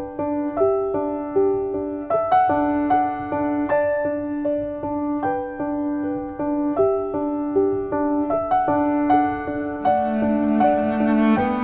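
Background piano music: a slow, gentle melody of struck notes over a repeated low note. Near the end a longer, held lower note joins in.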